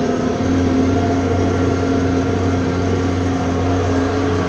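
Tractor diesel engine running steadily under load while pulling a cultivator. It is an even, unbroken engine sound whose low tone strengthens about half a second in and then holds.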